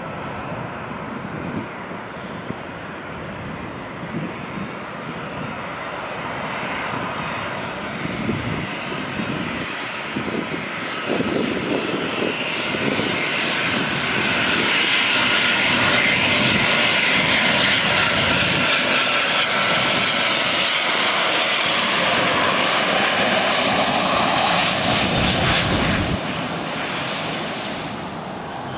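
Boeing 737-700's CFM56-7B turbofan engines on final approach, a rumble with a whine over it. The sound grows louder as the jet comes in low, is loudest about two-thirds of the way through, and eases off near the end as it touches down.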